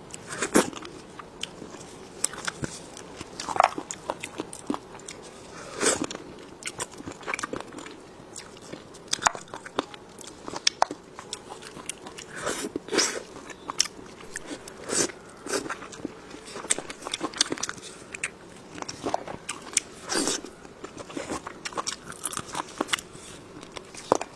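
Close-miked biting and chewing of crunchy food, with sharp, irregular crunches every second or so and softer mouth clicks between them.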